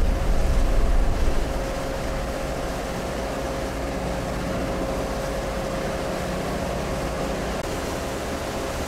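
Ferry under way, heard from the open deck: a steady low engine rumble with a constant hum and a rushing wash of wind and water. The rumble is louder and gustier for the first second and a half, then settles to an even level.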